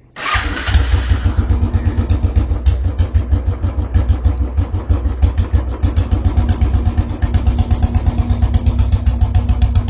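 Royal Enfield motorcycle engine coming in suddenly just after the start, then idling with a steady, even thump of about six or seven beats a second.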